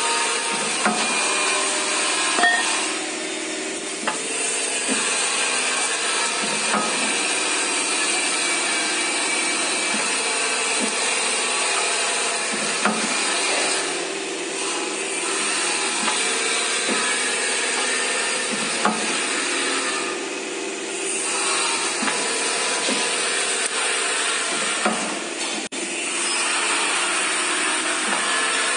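Steady machine-shop din of pipe chamfering machines running, with a few held tones and occasional sharp metallic knocks.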